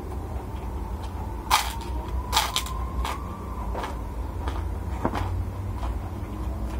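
A white fried cracker (kerupuk) is bitten and chewed with loud, crisp crunches. The sharpest bite comes about a second and a half in, then a quick cluster of crunches, then sparser crunching as it is chewed. A steady low hum runs underneath.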